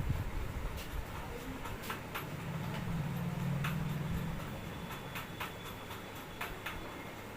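Scattered light clicks and taps of hands working on the head and neck during a massage. A low hum swells up in the middle and fades away.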